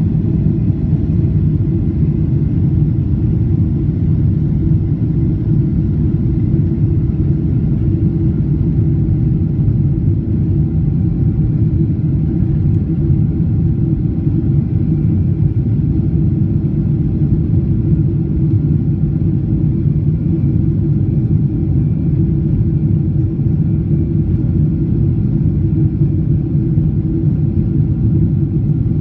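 Jet airliner at takeoff power heard from inside the passenger cabin: a loud, steady low rumble of engines and rushing air, with a few faint steady whining tones above it.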